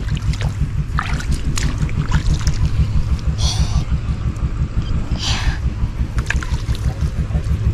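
A small engine running steadily nearby, a fast, even low thudding. A couple of short scuffs or splashes sound over it about three and a half and five seconds in.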